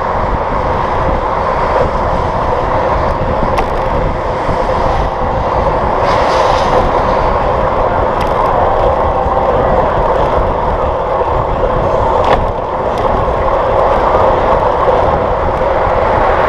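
Steady rush of wind and road noise picked up by a camera mounted on a moving bicycle, with a low rumble underneath. Three brief clicks sound through it.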